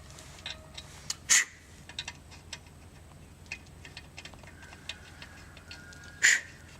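Metal tools and brake parts knocking together while new front brake calipers and rotors are fitted: light clicks and ticks, with two sharp metallic clanks that ring briefly, one about a second and a half in and one near the end.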